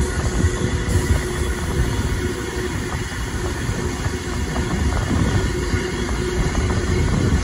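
Passenger carriage of a steam-hauled train rolling along the track: a steady rumble of wheels on rails, with a few light clicks from the rail joints.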